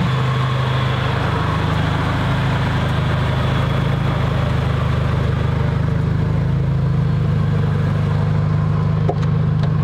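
BMW E30's swapped-in Nissan SR20DET turbocharged four-cylinder idling steadily, with no revving.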